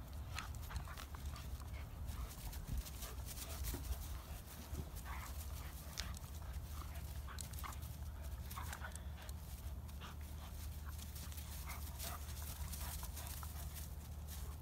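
A Doberman and a black puppy playing tug-of-war over a rope toy: scattered short dog sounds and scuffling on dry grass, over a steady low rumble.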